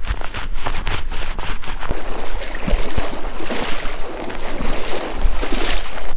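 Water splashing and sloshing with irregular knocks, as of someone wading through a shallow creek in waders, with wind buffeting the microphone as a low rumble.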